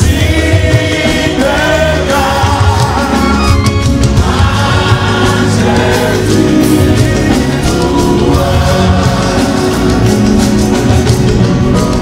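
A congregation singing a hymn together, many voices at once, over instrumental accompaniment with a steady beat.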